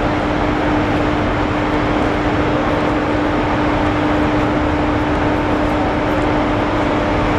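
Steady mechanical drone with a constant low hum running underneath, from machinery in the assembly hall.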